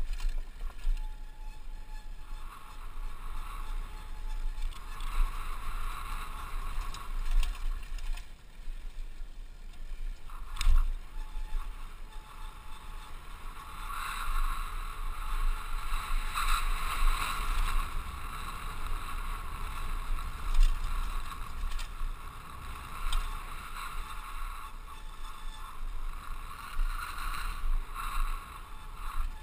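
Wind buffeting a helmet-mounted action camera on a mountain-bike descent, with bike tyres rolling and crunching over a dirt trail. A couple of sharp knocks come from bumps along the way.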